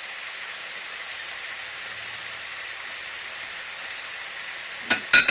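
Pancit canton noodles sizzling steadily in an electric skillet. A few sharp knocks come near the end.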